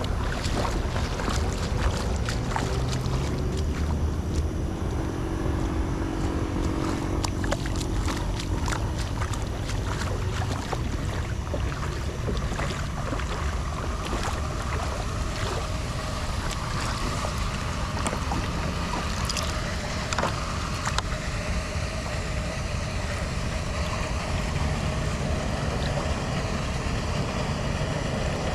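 Floodwater sloshing and flowing, with wind rumbling on the microphone and many small knocks and scrapes throughout.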